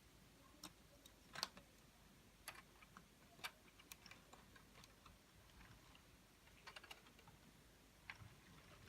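Faint, irregular clicks and taps of hard plastic Lego Technic pieces being handled and snapped together, about a dozen in all.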